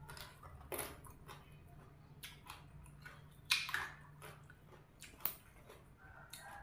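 A person chewing a mouthful of sticky rice with fish dip, with soft wet smacks of the lips and mouth, a few of them louder.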